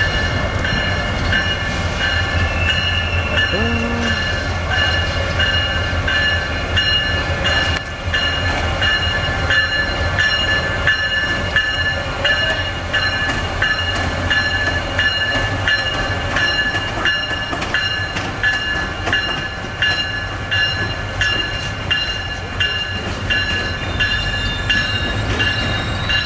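Amtrak ACS-64 electric locomotive moving slowly through the station with its bell ringing, about one stroke a second, over the steady low hum of the locomotive.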